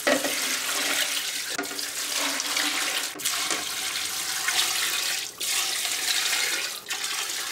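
Water pouring from a glass measuring pitcher into a stockpot, splashing steadily onto chicken carcasses and chopped vegetables, with a few short breaks in the flow.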